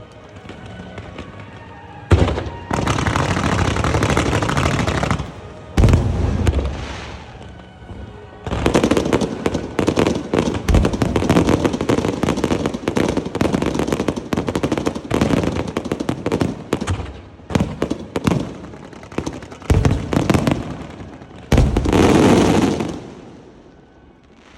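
Fireworks and firecracker salute: after a quieter start, a sudden burst of dense crackling about two seconds in, a heavy thump near six seconds, then long runs of rapid crackling and popping with a last loud burst near the end before it fades.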